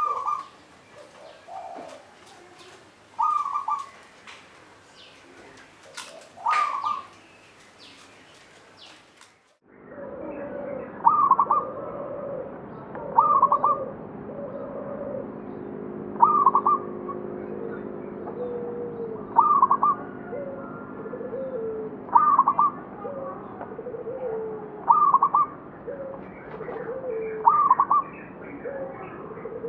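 Zebra doves (perkutut) cooing, a short phrase repeated about every three seconds. About ten seconds in, the sound cuts to a louder, duller recording in which the cooing phrases go on at the same pace.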